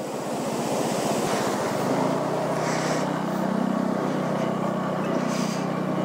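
Motorcycle engine running on the move, with wind rushing over the microphone. About two seconds in the engine settles into a steady hum.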